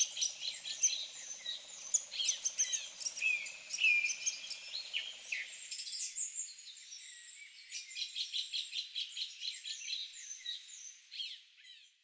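Birds chirping and calling in many short, quick notes over a faint low hum that stops about halfway; the calls thin out and fade away near the end.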